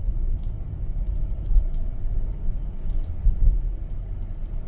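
Steady low rumble of a car driving on a slushy, snow-covered road, heard from inside the cabin.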